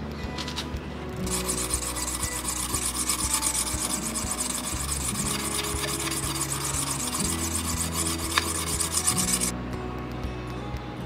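The flat back of an old hand-forged steel tailor's-shears blade rubbed back and forth on a wet whetstone in rapid strokes, starting about a second in and stopping about a second and a half before the end. The back is being ground to clear the pinpoint rust that keeps the blade from cutting thin cloth.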